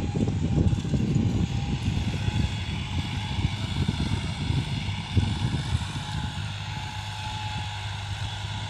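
Diesel engine of a Sonalika tractor droning steadily as it pulls a cultivator through the field. Irregular low buffeting on the microphone, like wind, dominates the first several seconds and eases off after about six seconds.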